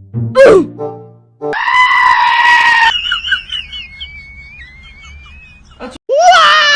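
A string of edited-in comedy sound effects: a quick swooping cry, then a harsh held cry, then faint chirps, and near the end a long, loud, wavering cry that sounds like an animal.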